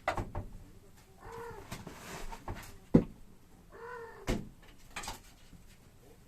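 A kitten meows twice, each call about half a second long. Between and around the calls come several sharp knocks and thumps, the loudest about three seconds in.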